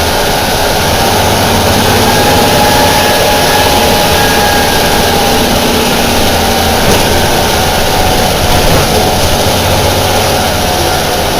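Deutz BF6L 913 C air-cooled turbo-diesel engine of a 1997 Deutz El Detalle OA 101 city bus, running steadily at an even speed with no clear revving.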